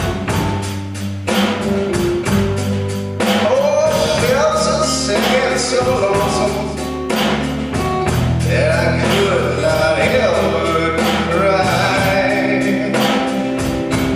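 Live blues-rock band playing: drums keeping a steady beat under bass and guitar, with a harmonica cupped against the vocal microphone carrying the lead line in bending notes.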